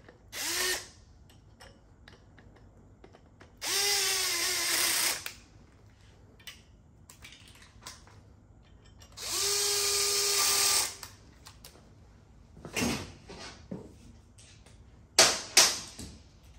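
Cordless power tool running down the bolts of the oil branch tube on a 6.0 Powerstroke diesel block: a short spin, then two longer runs at a steady pitch, each about a second and a half. A few sharp knocks follow near the end.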